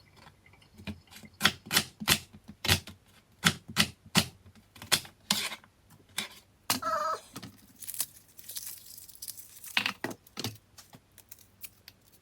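Kitchen knife chopping onions on a cutting board: sharp, irregular knocks of the blade on the board, one or two a second. A short pitched hum comes about seven seconds in, followed by a brief rustle.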